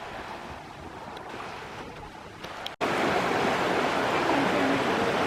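Stream water rushing: a steady hiss of moving water, faint at first and then suddenly much louder about three seconds in.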